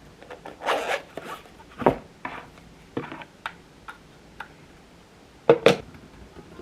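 Close-up handling noises: a rustling swish about a second in, then a few sharp knocks and small clicks of things being picked up and set down, the loudest a quick pair near the end.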